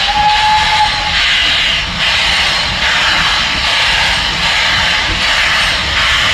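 BR Standard Class 9F steam locomotive 92134 passing at close range: a loud, steady roar of steam and running gear that swells and eases about once a second. A brief high steady tone sounds in the first second.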